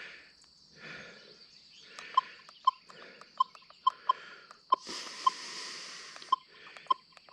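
Metal detector sounding short, sharp beeps of one pitch, about a dozen at uneven spacing, as its coil is swept over an old iron fridge magnet. Soft breathy hiss comes between the beeps, loudest around the middle.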